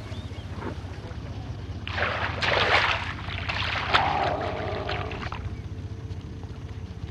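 Water splashing as a lion cub crosses a shallow swamp channel, starting about two seconds in and lasting some three seconds, over a steady low hum.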